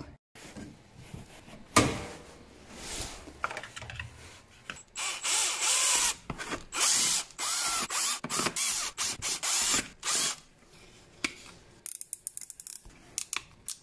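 Hand-tool work in irregular bursts: ratcheting and clicking mechanism sounds, busiest in the middle, with a quick run of sharp clicks near the end.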